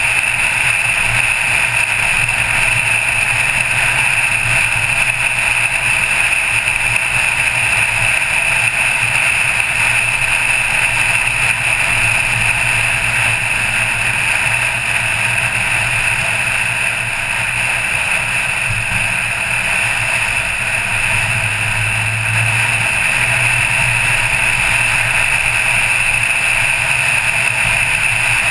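Car driving at a steady cruising speed: an even rush of wind and road noise over a low, steady engine drone.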